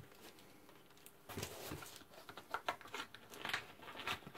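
A large cardboard box being handled and lifted, its cardboard rubbing and rustling with irregular small knocks and scrapes that start about a second in.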